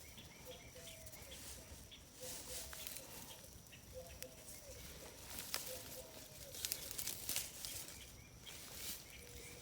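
A bird repeats a short call about once a second over a steady high insect-like drone. Several bursts of rustling and crunching soil, from potatoes being dug by hand, are the loudest sounds a few seconds in.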